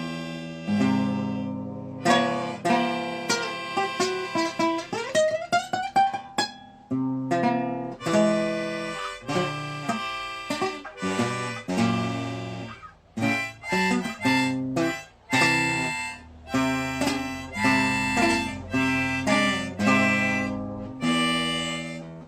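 Blues played on harmonica and acoustic guitar, with plucked notes throughout and a note sliding upward about five seconds in.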